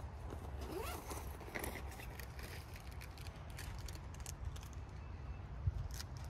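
Quiet outdoor ambience: a low, uneven rumble of wind on the microphone with scattered light clicks and taps.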